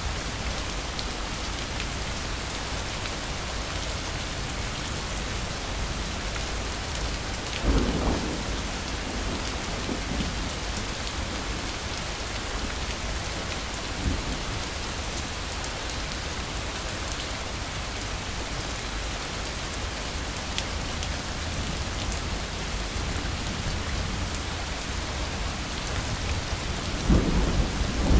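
Steady rain with thunder rumbling: a loud roll about eight seconds in, a short fainter one midway, and another building near the end.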